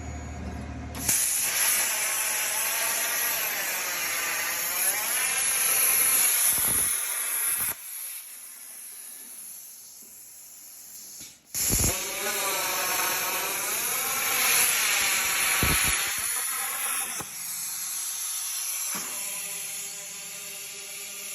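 Plasma torch on a CNC plasma table cutting copes into tube: a loud hissing arc whose pitch wavers up and down. There are two cuts of about six seconds each, each starting abruptly, with a quieter gap between them and a lower, steadier sound near the end.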